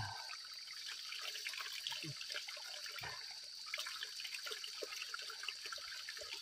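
Thin trickle of water running over rocks from a small forest spring, with small splashes and drips as water is scooped up in cupped hands and splashed onto the face and head.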